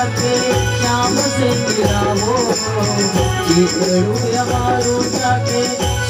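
Instrumental interlude of a live bhajan: harmonium and electronic keyboard carry a wandering melody over steady bass notes and a struck drum beat, with a regular jingling rattle keeping time. There is no singing.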